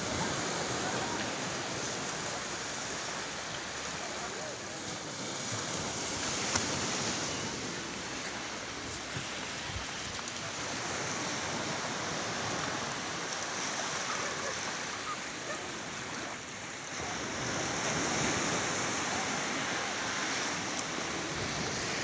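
Gentle surf washing onto a sandy beach: a steady rush of noise that swells and eases slowly.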